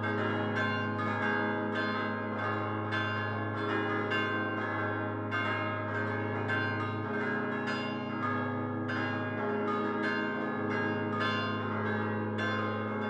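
Peal of five church bells cast by Prospero Barigozzi in 1928, hung fixed to their headstocks and chimed by hand-swung clappers, sounding C4, A♭3, E♭3, C3 and A♭2. Strikes overlap continually, with the deep hum of the 3.5-ton tenor bell struck again every second or so.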